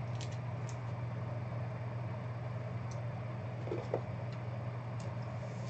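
Steady low room hum, with a few faint light clicks and taps of trading cards being handled and set down.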